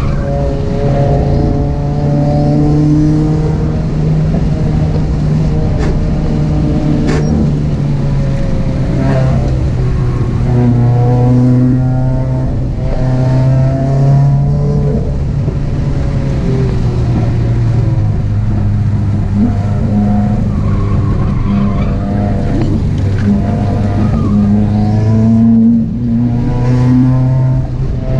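Turbocharged flat-four engine of a 2018 Subaru WRX, with no catalytic converter and a 3-inch exhaust, driven hard on a timed run: engine pitch rises and falls in steps with throttle and gear changes, with some tyre squeal.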